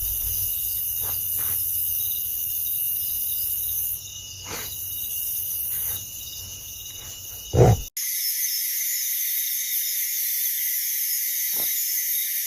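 Night-time insect chorus, crickets chirring steadily. A short, loud low thud comes just before two-thirds of the way through, then the background switches abruptly to a higher, hissier insect drone.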